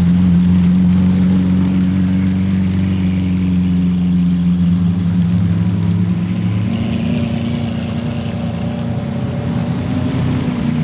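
A car engine running steadily on a deep, even note, the pitch shifting slightly about seven seconds in.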